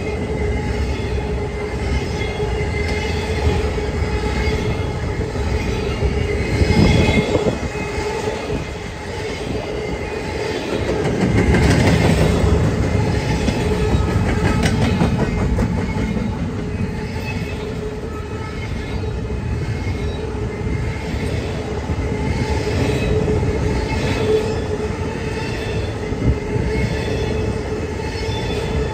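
Freight train cars rolling past, their wheels squealing on the rail with a steady ringing tone that swells louder about seven and twelve seconds in.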